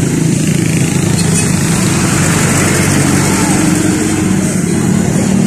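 Motorcycle and truck engines running close by in slow street traffic, a loud, steady drone with voices mixed in.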